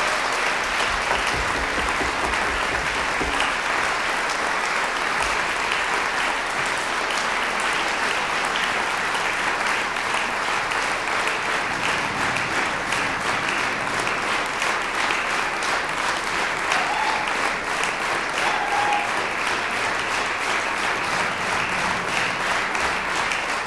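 Large audience applauding steadily at the end of a song, a dense, even clapping.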